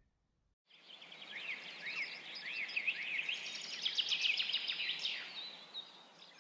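Small birds chirping and singing over a steady background hiss, fading in about a second in and fading out near the end.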